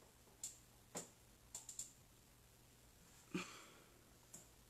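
Near silence with a handful of faint, scattered clicks and taps from small objects being handled while nail polish is applied.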